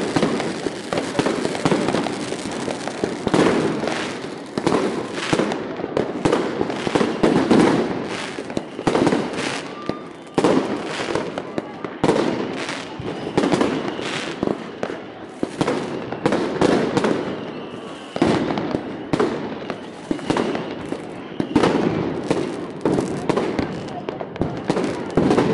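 Consumer fireworks and firecrackers going off all around at close range: irregular bangs and crackles, several a second, with no let-up. Crowd voices run underneath.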